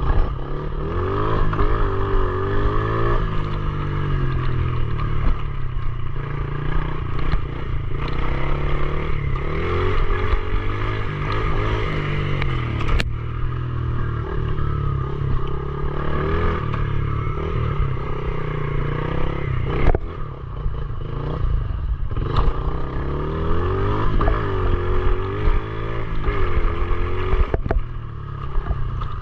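Pit bike's small single-cylinder engine running under way, its pitch rising and falling again and again as the throttle is opened and closed. A few sharp knocks stand out over the engine.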